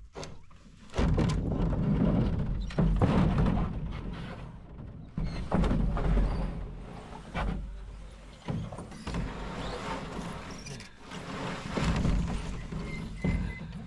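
Irregular dull thuds and rustling, every second or two, from footsteps and handled camping gear knocking about.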